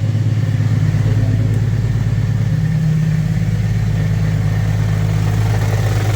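A 2017 Ford Fusion's 1.5-litre EcoBoost four-cylinder engine running steadily, making the abnormal noise of a cracked flexplate.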